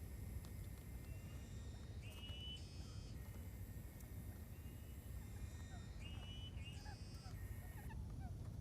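Quail calling: short, high calls with overtones, repeated every few seconds over a steady low rumble.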